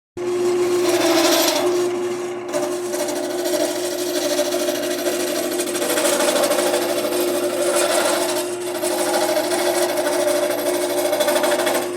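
Wood lathe running with a steady motor hum while a cutting tool scrapes against spinning aluminium stock, the harsh scraping growing louder and easing off several times.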